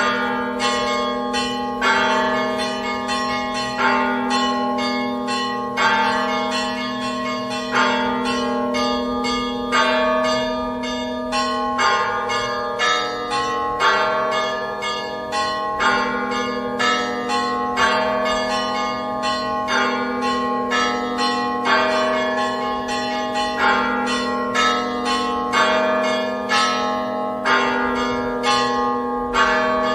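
Church bells ringing in a continuous peal: a louder stroke about every two seconds, with quicker strikes of smaller bells between and a steady low ringing underneath.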